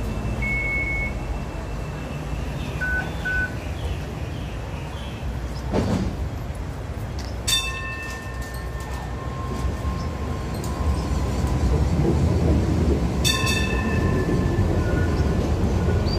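Hong Kong Light Rail train pulling out of the platform, its low rumble growing louder over the last few seconds. Short electronic beeps and steady tones sound earlier and again partway through.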